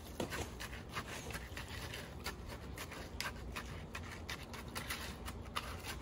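Small hand trowel scraping leftover wet concrete from a plastic basin and around the base of a metal fence post: a run of short, irregular scrapes and taps.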